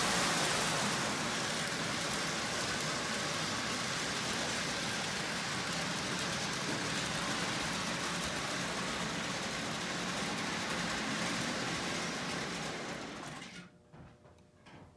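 Lionel O-gauge toy train running on tinplate track, its motor and wheels making a steady rumbling clatter, which cuts off suddenly near the end as the power goes off, leaving a few faint clicks.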